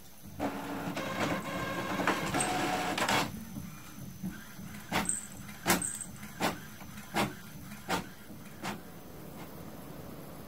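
Inkjet printer running: its motors whirr for about three seconds, then it makes a series of six sharp clicks roughly two-thirds of a second apart.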